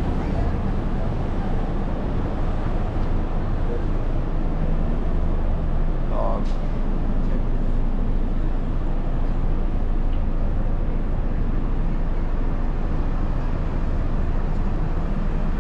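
City street ambience: a steady rumble of traffic with passers-by talking. A short higher-pitched sound comes about six seconds in.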